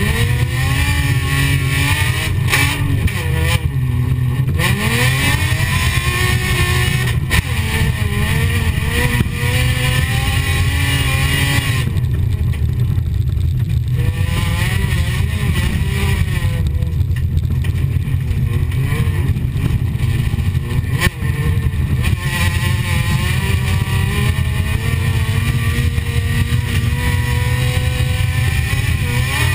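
Folkrace car's engine heard from inside the cabin, revving up and falling back again and again as it is driven hard over a dirt track, over a heavy, steady low rumble. A couple of sharp knocks cut through it, one about a third of the way in and one about two thirds in.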